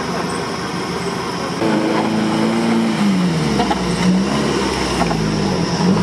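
Off-road 4x4 engine running and then revving under load. It gets louder about a second and a half in, its pitch drops about three seconds in, then rises and falls unevenly.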